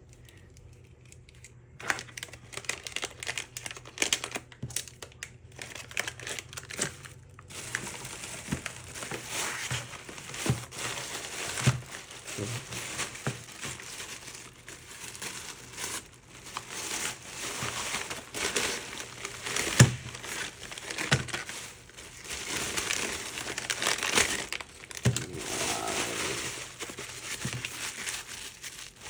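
Packaging crinkling and rustling as parcels are unwrapped by hand, with scattered clicks and knocks. Nearly quiet for the first couple of seconds, then intermittent, and continuous from about seven seconds in.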